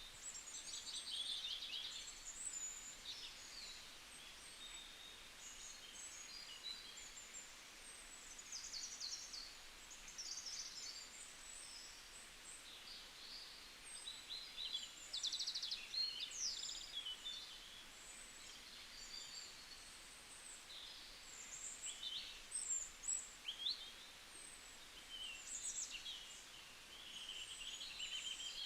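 Several birds chirping and trilling together, many short high calls overlapping throughout, over a faint steady background hiss.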